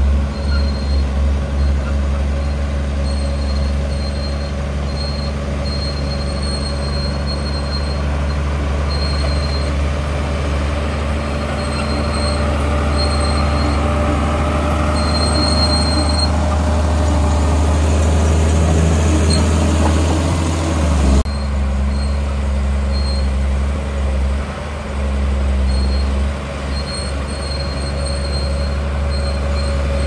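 Bulldozer's diesel engine running under load, with short high squeaks from its steel crawler tracks coming and going. The heavier working sound builds, then drops off suddenly about two-thirds of the way through, leaving the engine running on.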